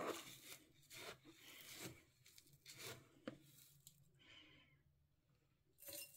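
A small plastic measuring scoop digging into a tub of dry seed mix, the loose seeds rustling faintly in short scattered bursts, with a few light clicks.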